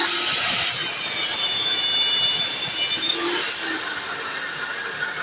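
DeWalt miter saw running, with a loud high whine from the motor and blade. The cut through the material is loudest in the first second, and the whine falls slowly in pitch near the end.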